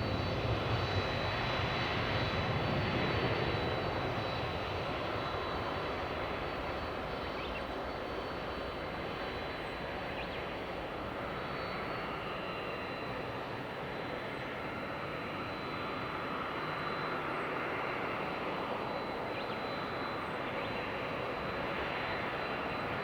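Boeing 767-300ER jet engines after takeoff: a steady jet rumble with a thin high whine, easing off slightly after the first few seconds and then holding as the airliner climbs away.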